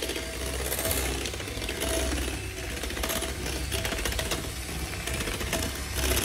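Handheld electric mixer running steadily, its twin beaters whipping sweetened cream in a glass bowl, with a fast mechanical rattle.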